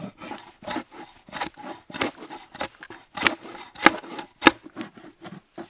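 Drawknife pulled in quick strokes across a rough-sawn log plank, shaving wood to take out deep grooves in the surface: a run of short cutting scrapes, about two a second.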